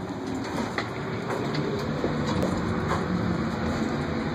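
Elevator running: a steady low hum and rumble, with a few light clicks.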